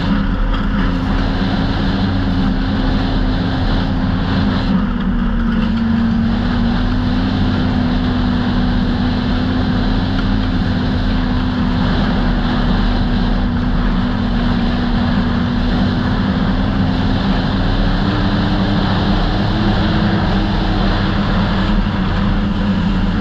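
Snowmobile engine on a 2008 Polaris Dragon Turbo running at a steady cruise on a packed trail, heard from the sled itself. The engine pitch holds even, then rises a little near the end, under a constant rush of wind and track noise.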